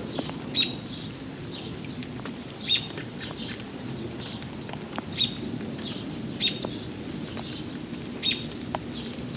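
A bird giving short, sharp chirps, five loud ones spaced about two seconds apart with softer chirps between, over a steady patter of rain and scattered drips.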